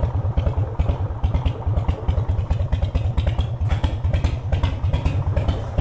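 Harley-Davidson V-twin motorcycle engine running at low revs with an even, pulsing beat while the bike is ridden slowly in.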